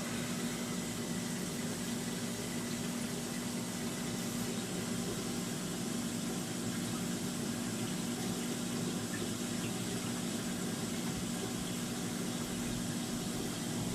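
Saltwater aquarium pump running: a steady low hum with the wash of circulating water.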